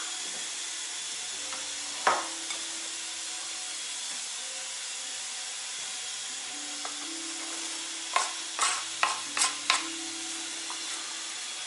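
Chunks of neck meat sizzling steadily in a hot cast-iron kazan, browning without any oil. One sharp knock about two seconds in, and near the end a quick run of about six wooden knocks as chopped onion is scraped off a wooden board into the pot with a wooden spatula.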